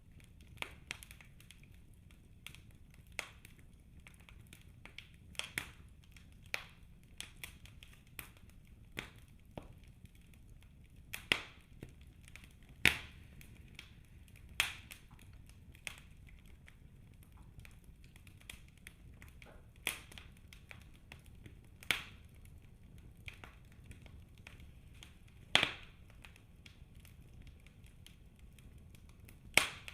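Fire burning in a fireplace, crackling with irregular sharp pops, a handful of them much louder, over a low steady rumble.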